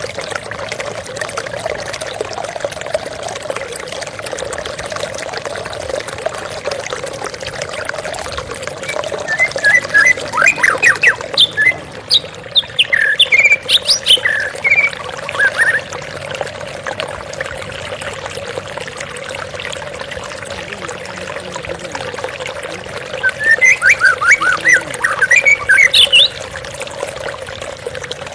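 Steady flowing water with a trickling rush. A songbird twice breaks in with quick runs of loud, rapid chirps, first about a third of the way in for several seconds and again near the end.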